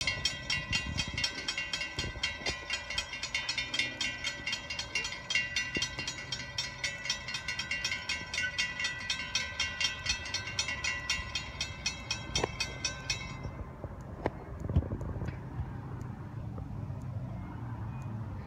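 Railroad grade-crossing bells ringing rapidly and evenly while the gates come down, cutting off about 13 seconds in once the gates are down. Under them, and alone afterwards, the low rumble of an approaching freight train.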